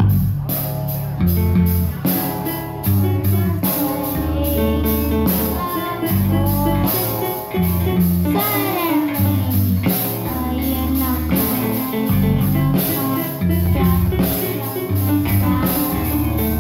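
A young girls' rock band playing live: electric bass and keyboard over a drum kit's steady cymbal beat, with singing.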